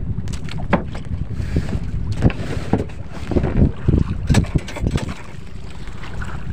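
Wind buffeting the microphone on a small outrigger canoe at sea, a steady low rumble, with irregular knocks and splashes of water against the boat.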